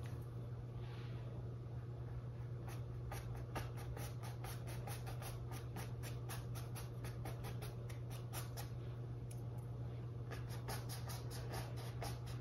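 Small paintbrush scratching across a stretched canvas in a rapid series of short strokes, laying on acrylic paint for fur. Under the strokes runs a steady low hum.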